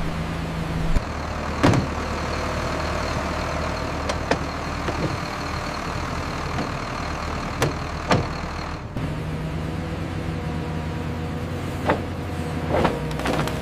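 Sawmill machinery running with a steady hum, a faint high whine through the first two thirds, and about six sharp knocks scattered through.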